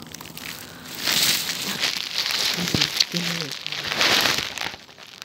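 Grass blades rustling and brushing against the microphone: a loud crackly hiss from about a second in that drops away near the end.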